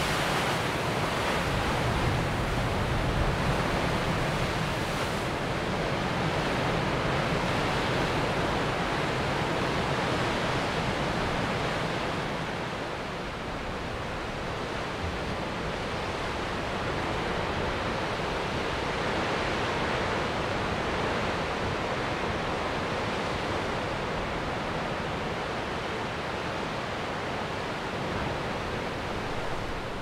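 Rough ocean surf breaking continuously onto a beach, a steady rush of wave noise that eases slightly about halfway through.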